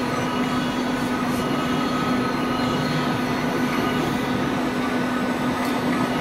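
Ceiling panel roll forming machine running steadily as its rollers form a metal strip into a ceiling panel: a continuous mechanical noise with a steady hum and a fainter high tone.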